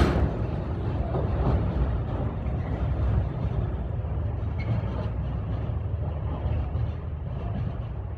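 Diesel train rumbling steadily.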